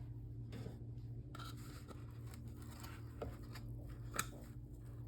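Faint rustling and scattered light clicks of hands working with an opened cinnamon-roll tube and its wrapper, with one sharper click about four seconds in, over a steady low hum.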